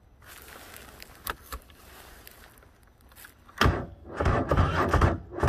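Polaris ATV engine cranked by its electric starter in freezing cold. A couple of faint clicks come first, and the starter kicks in about three and a half seconds in. The frozen engine does not catch.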